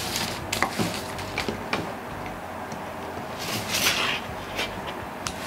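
Large sheet of pattern paper rustling and sliding on a table, with scattered light clicks and taps. A louder rustle comes about three and a half seconds in.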